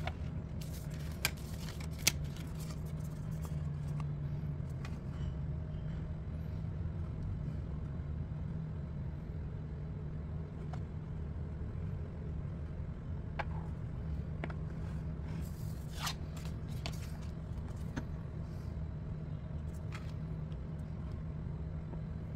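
A steady low background hum, with a few short clicks and taps scattered through it, the sharpest near the start, from hands handling a small plastic toy container.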